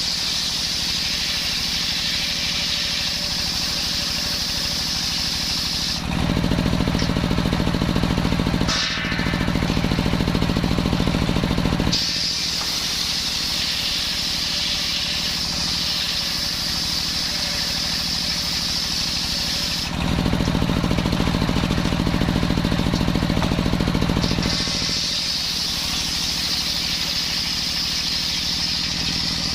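Engine-driven circular-saw mill sawing coconut-palm wood. The sound switches back and forth every several seconds between a high hissing cutting sound and a deeper engine hum, with a brief dip about nine seconds in.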